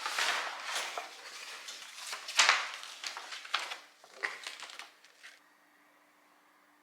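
Packaging rustling and crinkling as it is handled, with a few sharper knocks, the loudest about two and a half seconds in. It dies away after about five seconds, leaving a faint steady hum.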